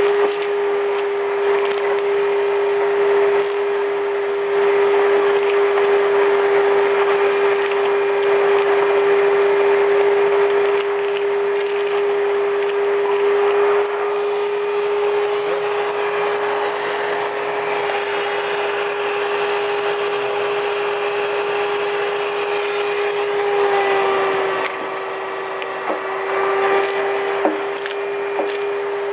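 Wet/dry shop vac running with a steady whine and hiss, sucking water and lime sediment out of a water heater tank through a homemade wand, with scattered crackling from grit in the hose. About 24 seconds in, the whine drops slightly in pitch and the sound gets a little quieter.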